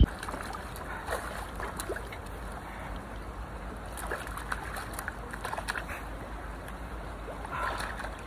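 Shallow river water running over rocks, a steady rush with faint scattered splashy ticks.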